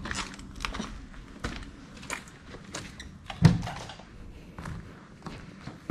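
Footsteps over debris on a littered hard floor, with irregular scrapes and knocks, and one heavy thump about three and a half seconds in.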